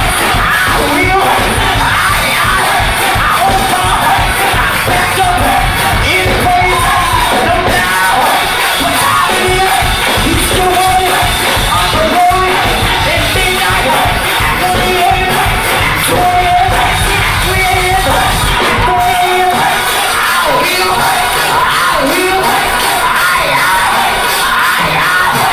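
Gospel choir singing with band accompaniment, loud and steady; the deep bass drops away about three-quarters of the way through.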